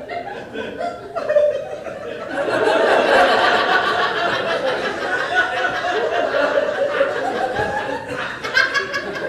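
Live audience laughing, rising about two seconds in to loud, sustained laughter that eases off near the end.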